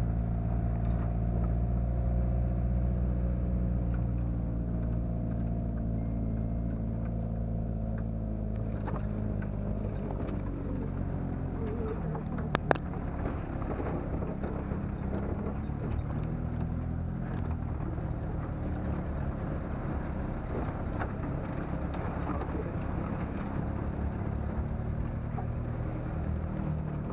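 Engine of an open-bed farm truck carrying passengers uphill, running at steady revs for the first ten seconds or so, then rougher, with rattling from the bed over a rough track. One sharp click about twelve seconds in.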